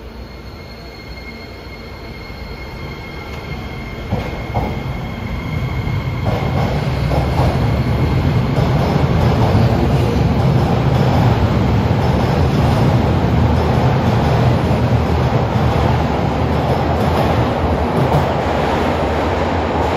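Toei 12-600 series linear-motor subway train pulling out of the station and accelerating: the rumble of its wheels and running gear grows louder over the first six or seven seconds, with a couple of clicks about four seconds in, then holds steady as the cars run past.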